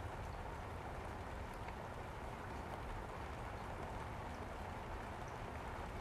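Room tone: a steady, quiet hiss with a low hum underneath and no distinct events.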